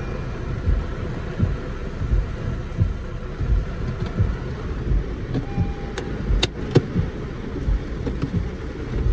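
Inside a car driving in heavy rain: steady road and rain noise on the cabin, with low thumps about three every two seconds. There are two or three sharp clicks a little over six seconds in.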